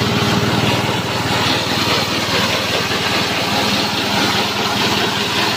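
Small engine of a JG 125 multifunction grass-chopper machine running steadily at constant speed, driving the chopper.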